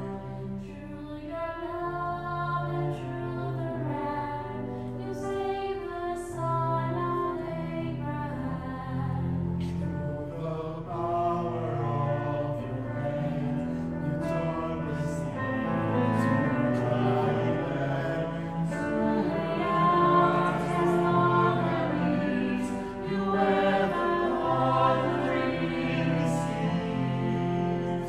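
Small mixed vocal ensemble of sopranos, altos, tenors and basses singing in harmony, with bowed cello and piano accompaniment. The voices hold sustained notes over a steady low bass line.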